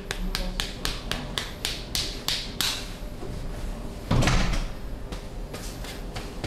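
Percussive massage strikes: a quick run of sharp slaps or chops at about five a second that stop about two and a half seconds in. About four seconds in comes one heavier, longer thump, the loudest sound.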